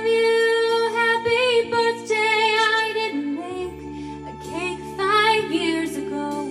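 A woman singing a slow, gentle song into a handheld microphone, her held notes wavering with vibrato, over steady low sustained accompaniment that changes chord about halfway through.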